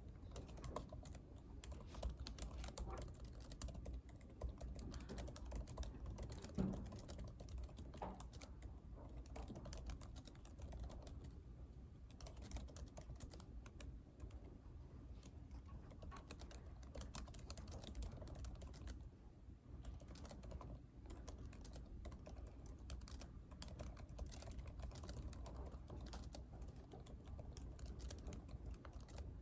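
Typing on a computer keyboard: quick, irregular key clicks, with a steady low hum under them.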